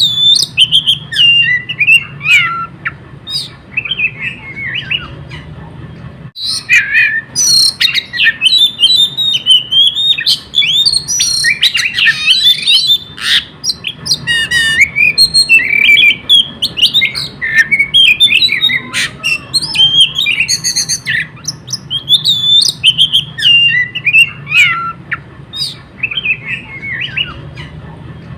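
Oriental magpie-robin (kacer) singing nonstop in a fast, varied stream of whistles, chirps and harsh notes, its song packed with mimicked phrases. The singing breaks off briefly about six seconds in.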